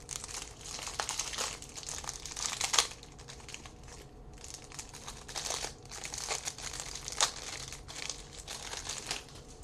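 Crinkling plastic wrapper of a cello-style trading card pack being handled and opened, in irregular crackly bursts, densest in the first three seconds.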